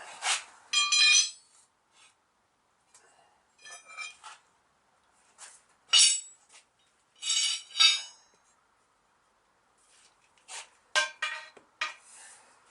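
Irregular metallic clinks and clanks in small clusters, some ringing briefly, from working a clincher tyre onto a Model T's steel wheel rim.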